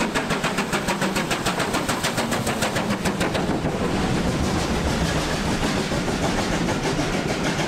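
BR Standard Class 5 steam locomotive working a passenger train, its exhaust beating fast and evenly at about five chuffs a second. After about three seconds the chuffs fade into the steady rolling noise of the coaches passing.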